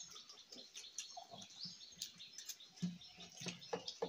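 Faint chirping of small birds, with a few light clicks scattered through.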